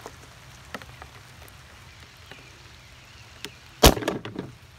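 A single sharp crack as a BB gun shot hits a small Lego brick target, followed by a short clatter of the plastic bricks scattering and falling onto the cardboard box floor.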